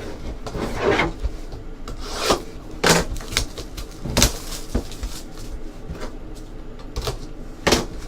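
Cardboard trading-card hobby box and its packs being handled and opened: irregular rubbing, scraping and sliding, with short knocks and clicks scattered through it.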